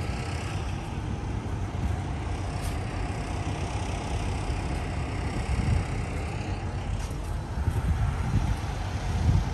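Steady low rumble of vehicle engine noise in the background.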